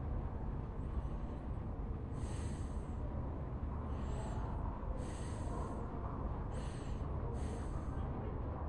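Library ambience: a steady low rumble of room tone with a run of short, soft, hissy strokes about once a second from about two seconds in, a couple of them with a faint squeak.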